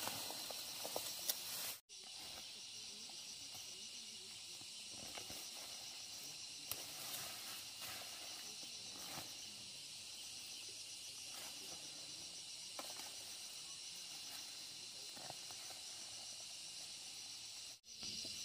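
Steady, high-pitched drone of an insect chorus, with faint scattered rustles and taps beneath it.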